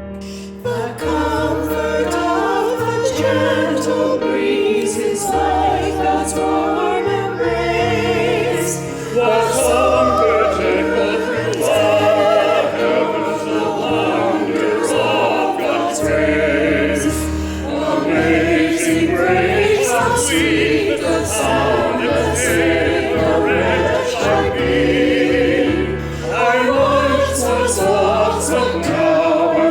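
A sacred song sung with vibrato over keyboard accompaniment, the voices coming back in about half a second in after an instrumental passage.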